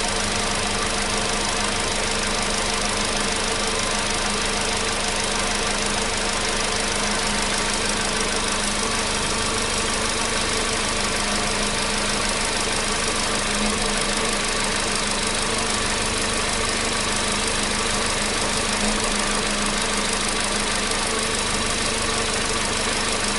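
Volkswagen Polo Sedan's 1.6-litre CFNA four-cylinder petrol engine idling steadily while it warms up from a cold start, with no cold-start knock.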